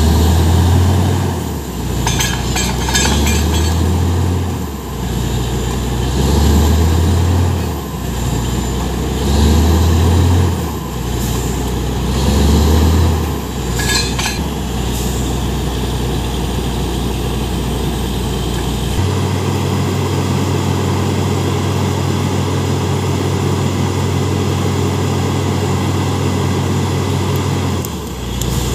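Truck-mounted borewell drilling rig running loud, its drone swelling and fading in a slow pulse about every three seconds, with a few metal clinks. About two-thirds of the way through, the drone turns steady and even.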